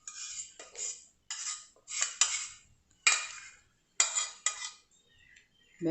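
A metal spoon scrapes against a container in about seven short strokes as syrup is spooned out. There is a sharp clink about four seconds in.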